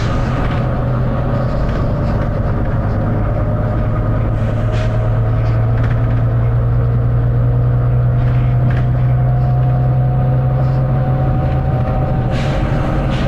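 Volvo B9TL double-decker bus's six-cylinder diesel engine running under steady load, with a whine that climbs slowly in pitch as the bus gathers speed. A short burst of air hiss near the end.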